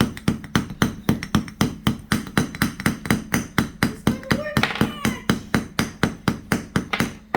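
A hammer striking a toy dinosaur egg over and over, about four quick blows a second, in a steady rhythm that stops near the end.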